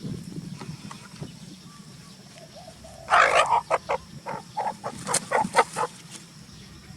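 A quick run of about a dozen short, sharp animal calls, starting about three seconds in and stopping near six seconds, over a low steady background.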